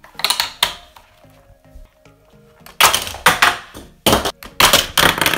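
Plastic clatter from a Hot Wheels dragon track set: a hand slapping the spring car launcher and die-cast toy cars rattling along the plastic track, in several bursts with the loudest a few seconds in. Quiet background music underneath.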